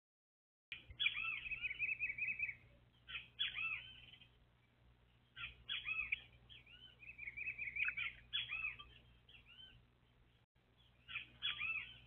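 Small songbirds calling in four bursts of high, arching chirps, some running into short, rapid chattering trills.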